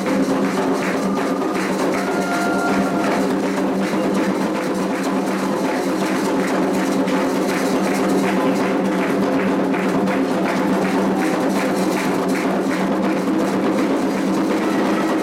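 Candomblé ceremonial percussion music: drums with a sharp, regular beat about three strokes a second, over steady held tones underneath.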